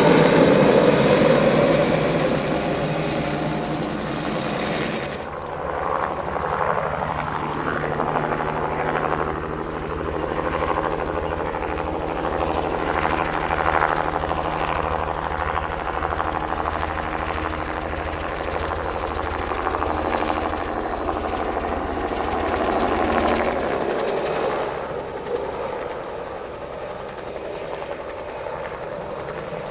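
Crop-spraying helicopter flying over the marsh, its rotor beating steadily. A loud rushing noise fills the first few seconds, and the low beating stops about three-quarters of the way through as the sound fades.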